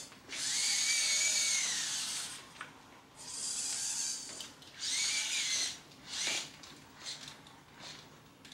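Electric motors in a robot's neck and head whirring in bursts as the head swings through a motion sequence. The first whir is the longest, about two seconds, rising and then falling in pitch, followed by two shorter whirs and a few brief ones near the end.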